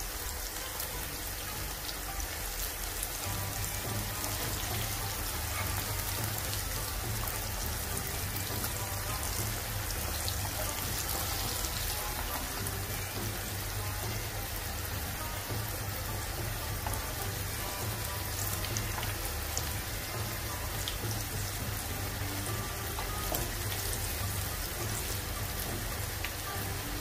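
Hot oil crackling and sizzling steadily in a frying pan as fried aubergine slices are lifted out with a slotted spoon, over a steady low hum.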